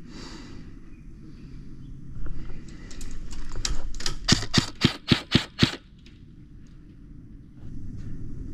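Airsoft gun firing a quick string of shots, about four a second: fainter ones first, then about seven sharp, loud cracks between about four and six seconds in.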